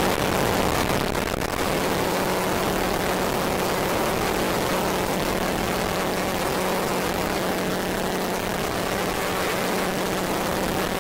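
Dense, steady synthesizer drone: a wash of noise with a single low tone held throughout, close to the hum of an engine.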